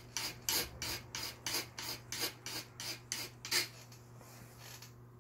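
Fine sandpaper rubbed back and forth on the metal hook part of a sewing machine, at about four strokes a second, stopping about three and a half seconds in. It is smoothing a rough burr gouged by the needle, which snags the thread and makes it tangle.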